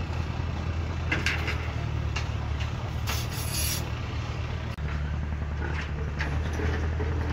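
A heavy diesel engine running steadily at a construction site, with a few short knocks over it. The hum breaks off for an instant a little after the middle and then carries on.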